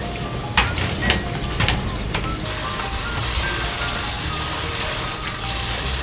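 Tap water running into a glass bowl of evening primrose flowers as a hand swishes them to rinse, a steady hiss of splashing water that grows stronger about two and a half seconds in, with a few sharp clicks in the first two seconds.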